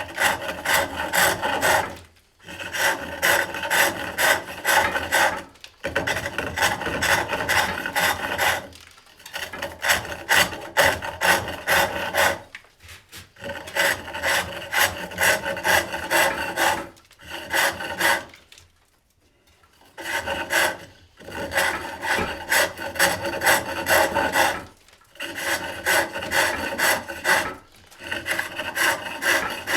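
Hook tool cutting wood on a foot-powered pole lathe: runs of rapid rasping strokes as shallow smoothing pivot cuts are taken, each run a few seconds long and broken by short pauses, the longest about two-thirds of the way through.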